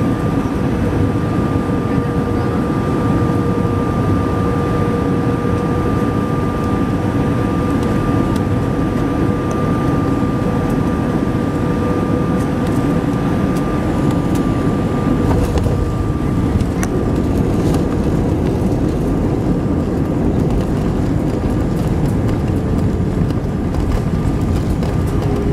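Airbus A320 cabin noise over the wing on final approach: steady jet-engine and airflow noise with two steady whining tones. About halfway through, a deeper rumble sets in as the main wheels touch down and roll along the runway.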